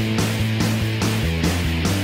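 Background rock music: guitar chords over drums with a fast, steady beat.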